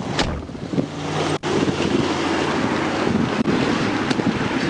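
Wind buffeting the microphone, with road and vehicle noise beneath it. The sound cuts out for an instant twice.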